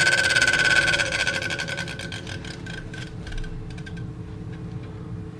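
Desktop PC fans, the new case fans and the air CPU cooler fan, spinning up at full speed on power-on: a loud rushing whir with a high steady whine. They ease off over the next few seconds and settle to a lower, steady hum.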